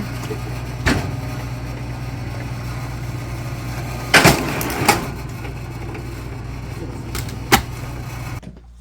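Engine-driven log splitter running steadily, with a few sharp cracks and knocks of firewood being split. The running sound cuts off suddenly near the end.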